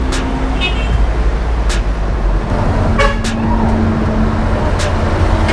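Road traffic rumbling, with a short vehicle horn toot about three seconds in and a few sharp clicks scattered through.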